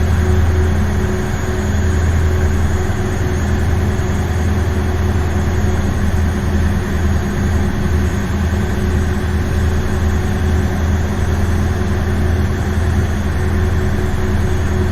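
Ferry's engine running at a steady speed: a constant low drone with a steady hum over it, unchanging throughout.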